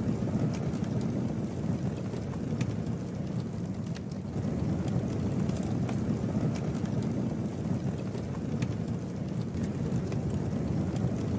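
Campfire burning: a steady low rush of flame with scattered sharp crackles and pops of burning wood.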